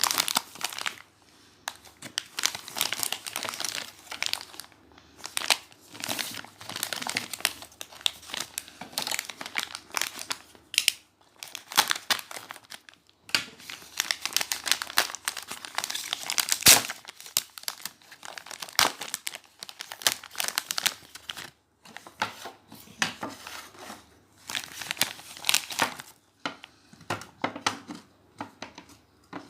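Packaging being crinkled and torn open in irregular bursts that start and stop, with one sharp click a little past halfway through.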